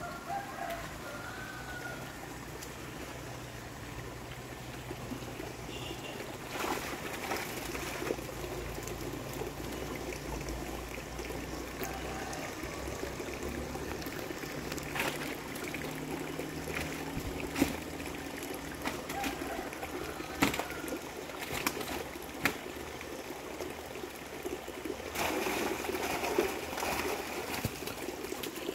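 Water trickling and running steadily in a shallow, draining fish pond, with a few sharp knocks or splashes here and there.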